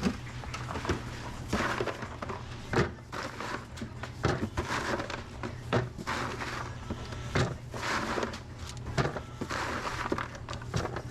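Restaurant kitchen clatter: scattered knocks, thunks and clanks of utensils, baskets and containers being handled, over a steady low hum.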